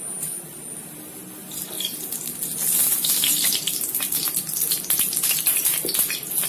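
Mustard oil poured into a hot iron kadhai, starting to sizzle and crackle about two and a half seconds in; the crackle is dense and keeps going.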